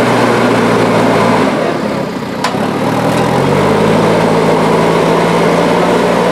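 A vehicle engine running steadily. Its pitch drops about one and a half seconds in, then rises again at about three and a half seconds and holds higher.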